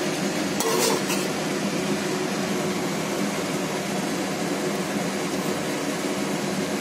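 A metal spoon clinks and scrapes against the steel pot a few times about a second in, then a steady hiss of chicken and yogurt cooking in the pot, with a low hum underneath.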